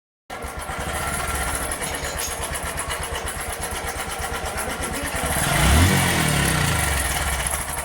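Motorcycle engine idling, revved up briefly and let fall back about five and a half seconds in.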